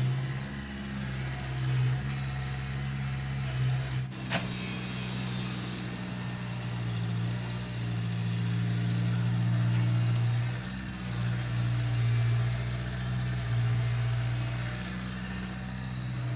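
A heavy engine running steadily at a constant speed, with one sharp knock about four seconds in.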